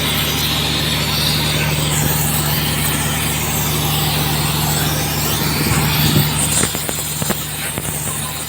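An engine idling steadily under a broad, even hiss, with several short knocks in the second half.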